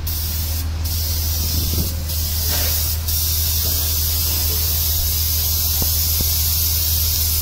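Air-fed paint spray gun spraying paint onto a rice combine harvester's panel: a steady high hiss, with a constant low hum underneath.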